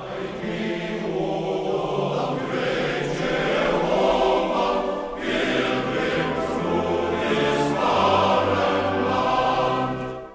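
A choir singing, many voices sustaining notes together. The singing cuts off abruptly at the end.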